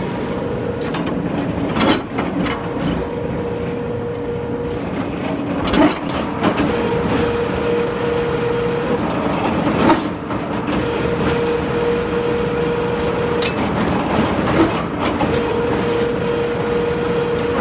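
Piling machine working in a repeating cycle: a steady whine for a few seconds at a time, broken by a knock about every four seconds, over constant mechanical noise.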